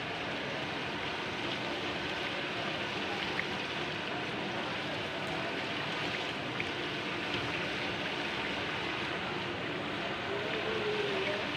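A large aluminium pot of biryani stock boiling hard over a gas burner makes a steady rushing, bubbling noise, with a few faint pops and ticks.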